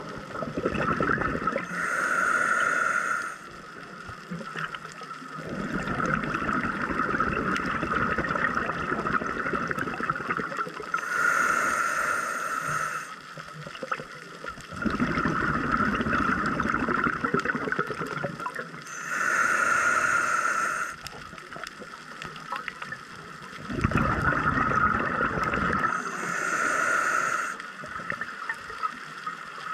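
Scuba diver breathing through a regulator underwater: four slow breaths, each a hissing inhale of a second or two followed by a longer rush of bubbling exhaust.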